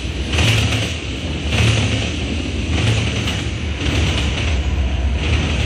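Long freight train rolling past at speed: a constant low rumble with a rhythmic clatter from the cars' wheels about once a second as each car goes by. A diesel locomotive running mid-train passes near the end.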